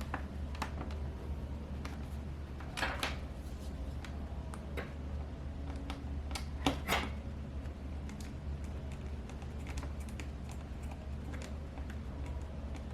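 Scattered light clicks and taps of a Phillips screwdriver and small screws on a laptop's screen assembly as the screws are put back, with two louder clicks about three and seven seconds in. A steady low hum runs underneath.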